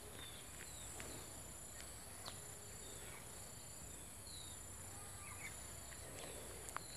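Faint background ambience: a steady high hiss with a few short, faint high chirps scattered through it and a couple of soft clicks.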